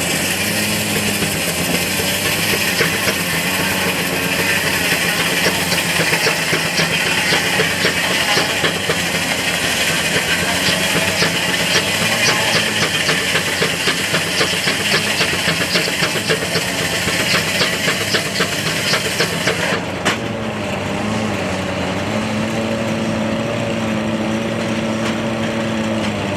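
Steam-powered antique sawmill: the saw blade cuts through a log, making a loud, steady ripping noise with fast ticking. The cut ends abruptly about twenty seconds in, and the mill machinery runs on with a lower, steady hum.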